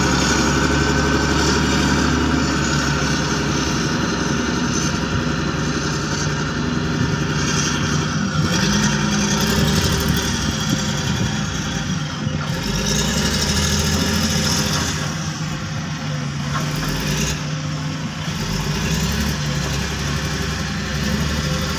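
Large Caterpillar wheel loader's diesel engine running under load as the machine drives, putting out dark exhaust smoke. A high whine rises and falls twice in the middle.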